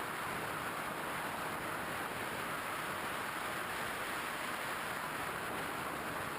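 Steady, even rushing noise of air and propeller on a Skywalker 1900mm FPV model plane in flight, picked up by its onboard camera.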